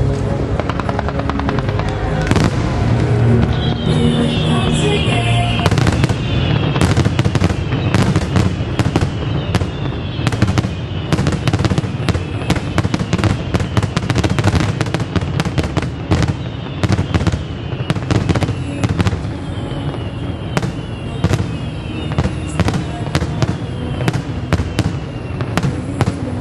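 Fireworks display: a few sharp reports at first, then from about six seconds in a dense, continuous run of bangs and crackles, many a second.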